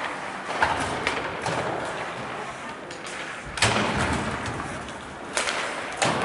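Ice hockey play along the rink: several sharp knocks and bangs against the boards and glass, the loudest about three and a half seconds in, over steady rink noise.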